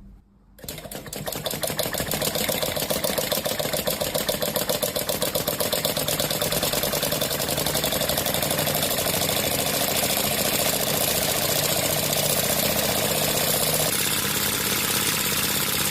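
A small engine starts about half a second in and runs steadily with a fast, even pulsing.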